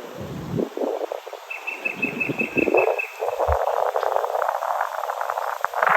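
Tropical forest ambience: a quick run of about ten short, high chirps a second and a half in, over low thumps, then a dense crackling rustle of insects and leaves through the second half.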